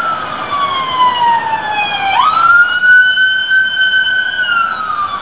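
Police car siren wailing: a slowly falling tone that sweeps quickly back up just over two seconds in, holds steady, then starts falling again near the end.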